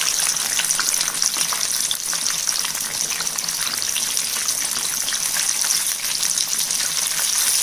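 Oat-coated chicken pieces deep-frying in hot oil in a pan: a steady sizzle with fine crackling.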